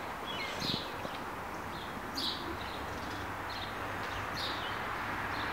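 A small bird chirping, short high calls repeated every half second or so, over a steady outdoor hiss.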